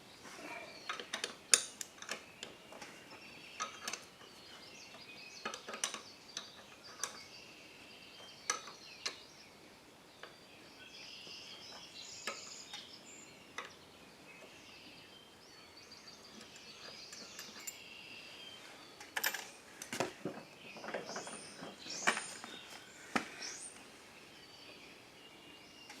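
Scattered metallic clinks and knocks of hand tools on the wheel hub as a lawn tractor's wheel bolt is undone and the wheel pulled off, busiest near the start and again toward the end. Birds chirp faintly in between.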